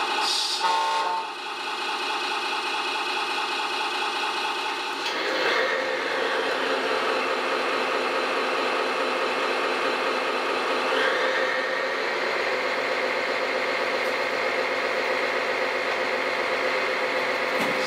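Radio-controlled model heavy machines running, their electronic sound modules playing steady diesel-engine sound through small speakers. The engine sound changes about five seconds in, and rises in pitch like a rev about eleven seconds in.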